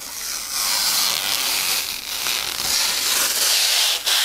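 Clear protective plastic film being peeled off a PC case's dark mirror front panel: a continuous high-pitched noise that breaks off briefly about four seconds in.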